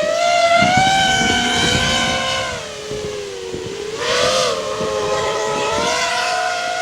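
FPV racing quadcopter motors and propellers whining, several close pitches dipping and rising together as the throttle changes, with a short rush of air about four seconds in.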